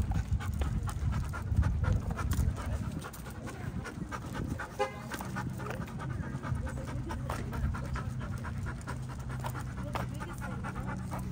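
Dog panting, with light clicks throughout. A low rumble fills the first few seconds, and a steady low hum comes in about five seconds in.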